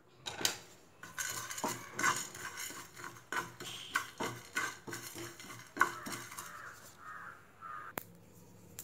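A spatula scraping and tapping around a nonstick frying pan, stirring whole spices (cumin seeds, black peppercorns, cardamom) as they dry-roast, the seeds rattling against the pan. Irregular scrapes and knocks, with one sharp click about eight seconds in.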